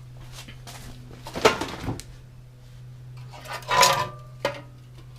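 Loose steel parts clanking and knocking together as they are handled. There are three knocks, the one a little before the end the loudest, with a brief metallic ring, over a steady low hum.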